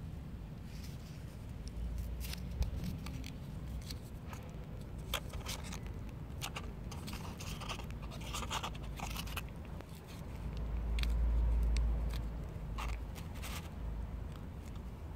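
Scattered scraping, crinkling and clicking handling noises as a plastic cat-treat pouch is squeezed out onto a plastic plate, with a low rumble on the microphone about two seconds in and a longer one around ten to twelve seconds.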